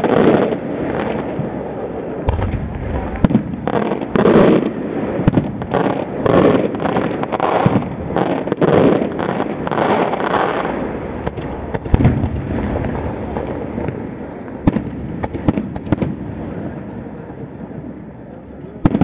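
Aerial firework shells bursting: a dense run of bangs for about the first ten seconds, then fewer, separate reports.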